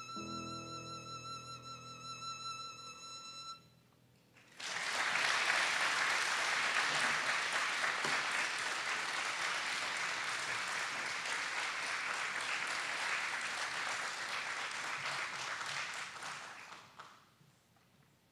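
Solo violin holding the piece's final note with vibrato, which stops about three and a half seconds in. After a brief pause the audience applauds steadily for about twelve seconds, then the clapping fades out.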